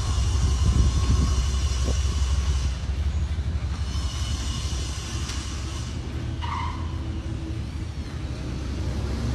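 Engine of an old tow truck rolling slowly past, towing a loaded trailer: a steady low rumble that gradually fades as it moves away.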